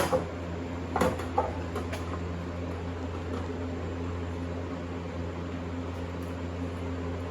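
Steady low machine hum, with a few sharp clicks and knocks in the first two seconds.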